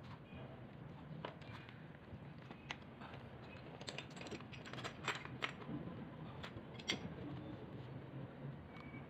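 Light metallic clicks and taps of a pipe wrench working a brass swing check valve and its plastic union fittings, with a few sharper knocks past the middle.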